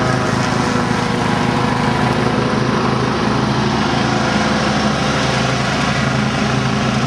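Riding lawn mower engine running steadily at constant speed while mowing, with an even, unchanging drone.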